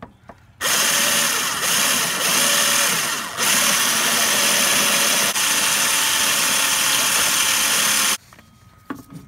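Power drill spinning a small wire brush bit inside a threaded bolt hole in the engine bracket, scrubbing it clean before re-applying epoxy. It starts under a second in, runs steadily with a few brief dips, and stops near the end.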